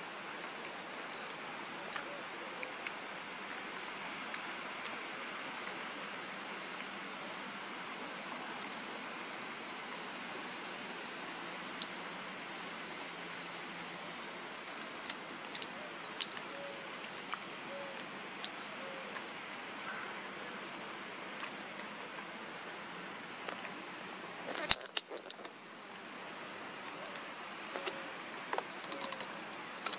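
A steady chorus of insects with a high, evenly pulsing trill runs throughout. It is broken by a few short, sharp chirps from a perched osprey and one sharp click about three-quarters of the way through.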